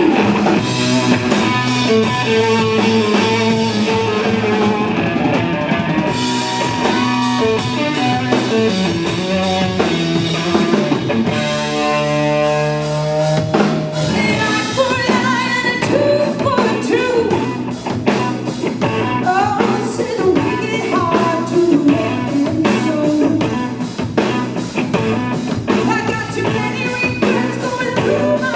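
Rock band playing: singing over electric guitar and drum kit, with a held, sustained passage about halfway through.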